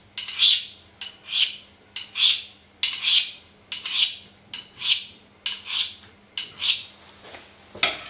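Blade of a Victorinox Swiss Army knife drawn edge-first along a diamond sharpening steel, about nine scrapes a little under a second apart. The edge is being deliberately killed, the first step before resharpening on stones.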